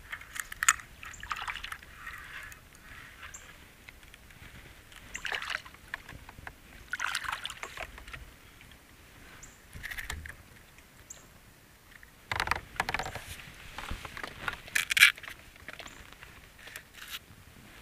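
Water splashing and dripping around a kayak now and then, with a few sharp knocks of gear being handled against the hull; the loudest knock comes near the end.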